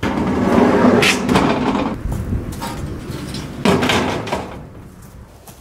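Corrugated tin roofing sheets sliding, scraping and rattling as they are shifted. The sound is loudest about a second in and again near four seconds in, then dies down.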